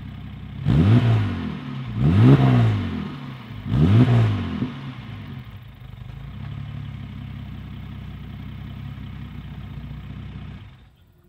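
1970 Mercedes-Benz 280SL's fuel-injected straight-six engine idling, blipped three times in quick succession, each rev rising and then falling back. It then settles into a steady idle that cuts off near the end.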